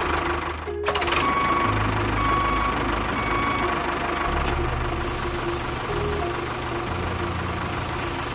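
Tractor engine running steadily, with a brief break just under a second in. About five seconds in, the hiss of sand pouring out of a tipping trailer joins it.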